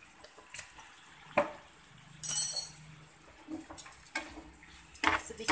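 A spoon clinking and scraping in a frying pan of stir-frying beef, with one loud, bright ringing clink about two seconds in, over a faint sizzle.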